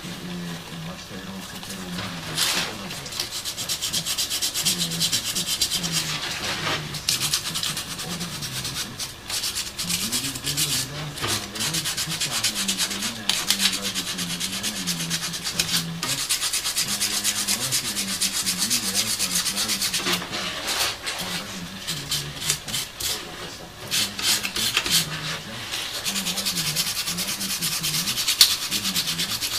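Sandpaper rubbed by hand over a small piece of 2 mm brass sheet in quick back-and-forth strokes, smoothing and polishing the cut brass motif, with a few brief pauses.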